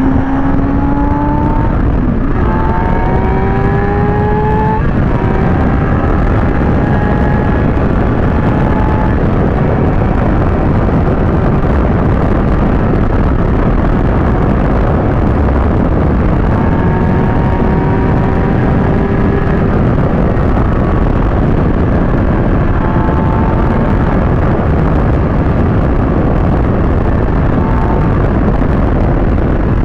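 Kawasaki ZX-6R inline-four engine pulling hard through the gears, its pitch rising and dropping at shifts about two and five seconds in, then running steadier at cruising revs. Heavy wind rush over the microphone runs under it throughout.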